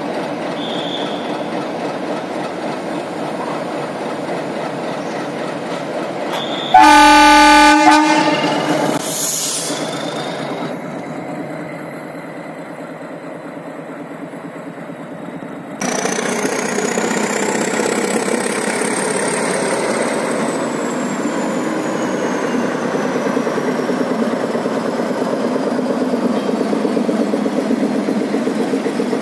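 Nilgiri Mountain Railway diesel locomotive running, with one loud horn blast about seven seconds in, then pulling its coaches out of the station. In the second half a high, thin squeal rises and then slowly falls over the engine and the rumble of the passing coaches.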